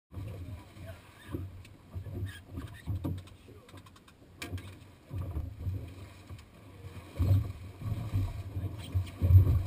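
Water slapping against a small boat's hull in choppy sea, heard as irregular low thumps and rumbles, with a few light clicks in the first half.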